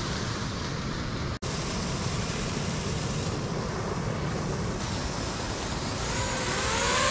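Waterfall rushing: a steady, even roar of falling water, broken by a brief dropout about a second and a half in. Near the end a rising tone with several overtones comes in over it.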